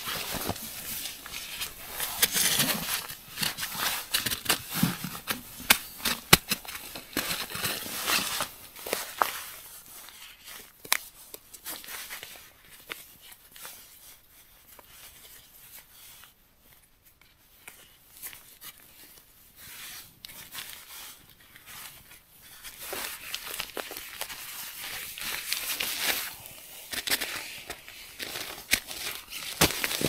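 Rustling and crinkling of a down jacket, down pants and nylon tent fabric, with scattered small clicks, as a person dresses and laces up hiking boots inside a small tent. Busiest at the start and again toward the end, quieter in between.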